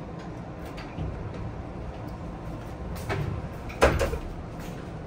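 Inside a Sotetsu 10000 series commuter car standing at a platform with its doors open: a steady low hum of the stopped train. About four seconds in there is a sharp knock with a short ring, and a softer one a second before it, as a passenger in sandals walks past on the floor.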